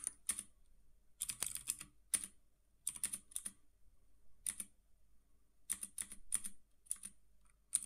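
Computer keyboard being typed on: short runs of key clicks separated by pauses of about half a second to a second, as commands are entered one after another.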